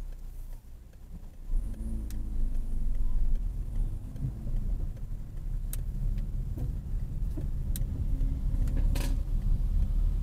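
Car engine and road noise heard inside the cabin. It grows louder about a second and a half in as the car pulls away and the engine note rises. A few sharp clicks sound over it.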